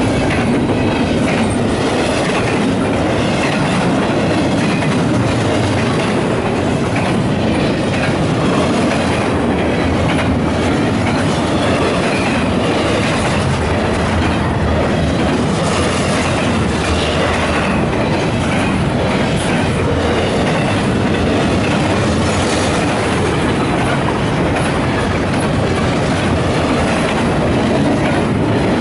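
Double-stack intermodal well cars of a freight train rolling past at speed: a loud, steady rumble of steel wheels on rail with clickety-clack.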